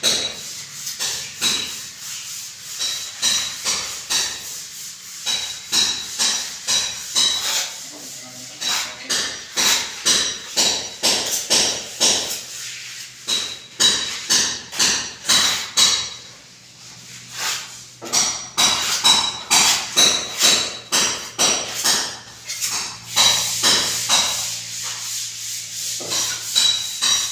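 Hammer blows, two to three a second, in runs with a short pause partway through.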